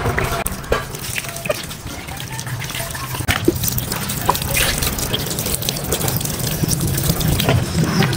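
Water from a hose splashing onto a soaked plush toy, with irregular drips and trickles as the toy is rinsed and squeezed.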